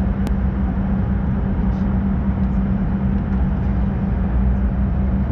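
Steady jet cabin hum inside a Fokker 100 standing on the ground, a constant low drone with a steady hum-tone, and a single sharp click shortly after the start.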